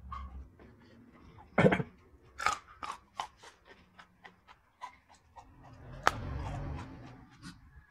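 Close-up eating sounds of raw jengkol (dog fruit) being chewed: irregular wet, crunchy clicks, with a sharp crunch about six seconds in as a fresh piece dipped in sambal is bitten.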